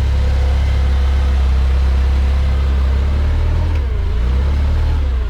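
Toyota forklift engine running steadily under light load while the machine manoeuvres, its pitch shifting slightly about four seconds in.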